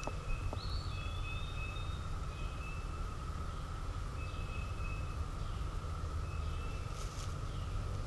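Woodland birds calling: a short falling whistle about half a second in, then brief high notes repeated every second or two. Underneath runs a steady high hum and a low rumble.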